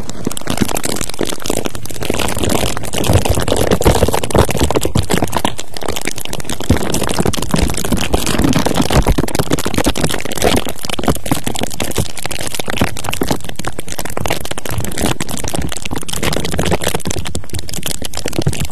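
Dense, continuous scratching and crackling right on the microphone, full of sharp clicks: ASMR 'ear check' triggers rubbing the mic close up.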